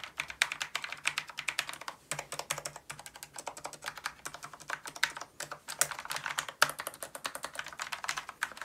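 Fast typing on a Corsair K70 MK.2 Low Profile keyboard with Cherry MX Low Profile Speed (silver) switches: a dense run of light keystroke clicks, with a few louder single strikes past the middle. Its stabilizers come greased from the factory, so the stabilizer wire noise is present but subdued.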